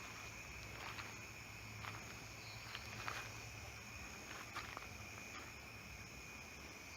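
Crickets chirring in a steady night chorus, with a few faint clicks scattered through it.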